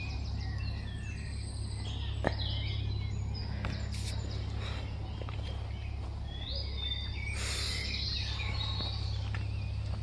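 Wild birds chirping and singing on and off, over a steady low rumble. There is a sharp click about two seconds in and a short hiss a little past the middle.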